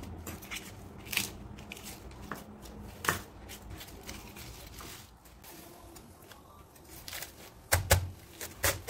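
Knife work on a wooden chopping board: scattered taps and snaps as bok choy stalks are cut and pulled apart. Near the end come a few heavy knife chops into a cabbage, the loudest sounds.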